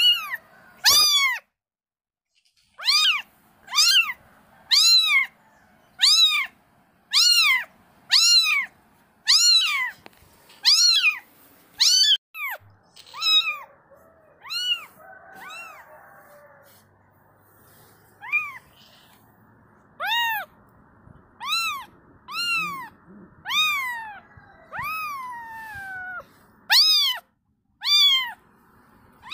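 Kittens mewing: a long series of short, high-pitched meows, about one a second, each rising and then falling in pitch, with a lull of a few seconds midway.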